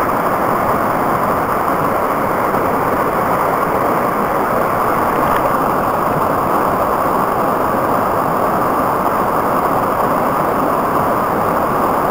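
Whitewater brook rushing and splashing over boulders in a rocky cascade: a loud, steady rush of water.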